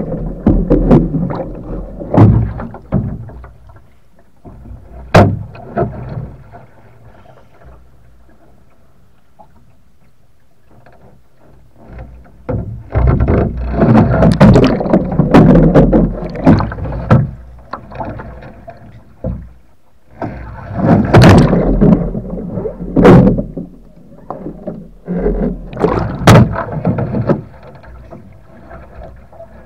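Water splashing and sloshing around a sea kayak as it is capsized and rolled back upright, heard close at the deck. It comes in loud bursts with a few sharp knocks, with a quieter spell in between.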